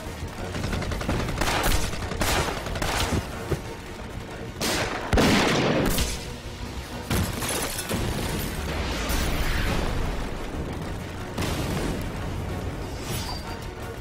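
Film battle sound effects: a series of gunshots and explosion blasts, the loudest about five seconds in, over a background music score.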